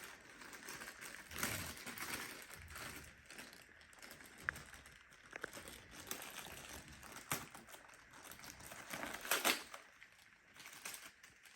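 Plastic crinkling with scattered light clicks and knocks, as new replacement filters and the plastic parts of a robot vacuum are handled.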